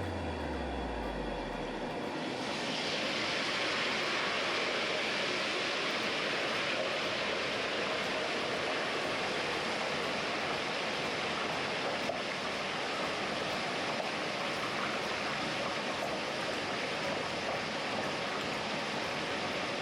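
Steady hissing and bubbling of a turkey deep-frying in hot oil in a propane-fired fryer, a little louder from about two seconds in.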